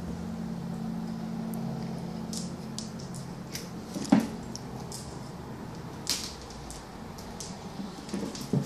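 A cat pouncing and scrambling after a toy mouse on a hardwood floor: scattered light clicks and taps of paws and claws on the wood, with two louder thumps, one about four seconds in and one near the end. A low steady hum is heard under the first three seconds.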